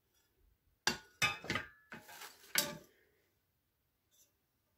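Gotham Steel nonstick frying pans knocking together as they are handled: a few sharp metallic clinks between about one and three seconds in, one leaving a brief ring.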